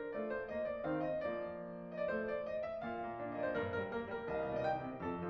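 Background piano music: a flowing melody of many overlapping notes.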